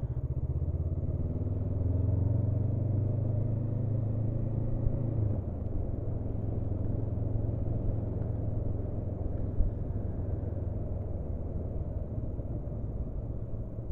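Honda CB500F parallel-twin engine running under way, with a steady low hum and road noise. The engine pulls harder for the first few seconds, then eases off about five seconds in and runs on more quietly.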